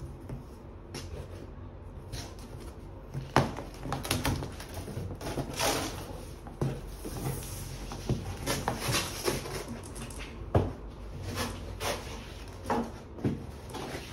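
Irregular knocks, scrapes and rustles of a large cardboard box being handled, over a steady low hum; the sharpest knocks come about three seconds in and near ten and a half seconds.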